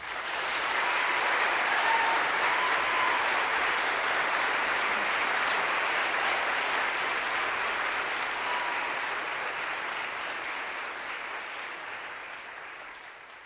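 Audience applauding at the end of the choral piece. The clapping starts suddenly, holds steady, and fades away over the last few seconds.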